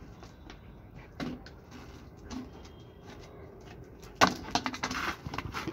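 A round plate knocking and scraping on a concrete floor as a German shepherd puppy noses and paws at it. There are a few light knocks, then a louder run of clattering scrapes from about four seconds in.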